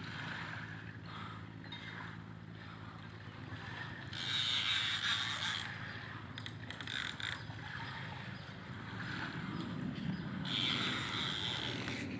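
Heavy spinning fishing reel being cranked, line wound in against a hooked fish, a steady mechanical whirr, with two louder hissing stretches about four and ten seconds in.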